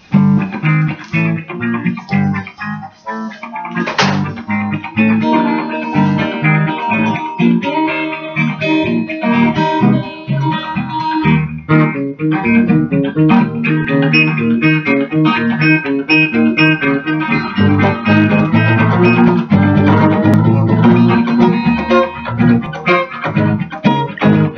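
Two electric guitars, a black archtop and a Stratocaster-style solid body, play old-school gospel guitar together. Chords ring over low notes that change often.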